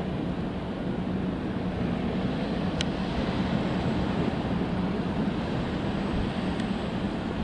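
Freight train cars rolling past in a steady low rumble, with two brief sharp clicks.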